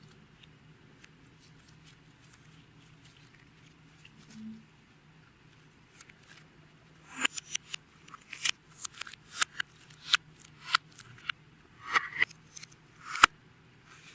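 Clear slime being worked by hand, giving a run of short, sharp sticky clicks and pops that start about halfway in, some in quick clusters, with one louder pop near the end.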